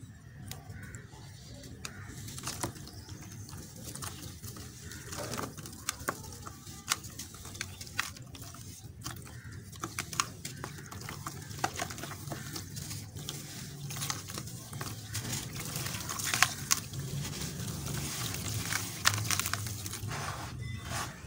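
A block of gritty red dirt crumbled by hand over a tub of water: grains and small lumps crackling as they break and pattering into the water with many sharp ticks, growing busier in the second half. Near the end a hand swishes through the muddy water.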